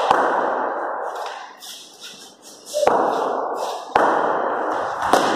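Indoor cricket: four sharp knocks of bat and ball on a hard floor. They fall at the start, about three seconds in, at four seconds and near the end, over a background din that drops away for a moment in the middle.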